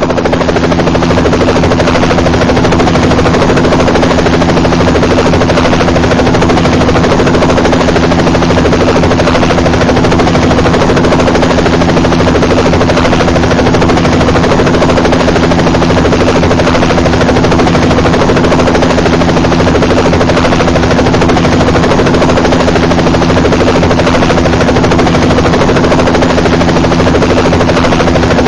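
Helicopter sound effect: a fast, steady chop of rotor blades over a constant engine tone, running unchanged throughout.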